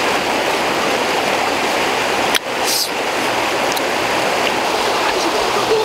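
Steady rushing of a fast-flowing river, broken by a short drop in level about two and a half seconds in.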